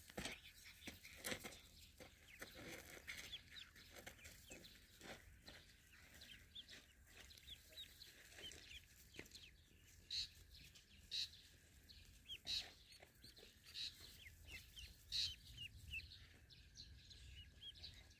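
A group of ducklings peeping: many short, high peeps repeating and overlapping, with light rustling in dry grass.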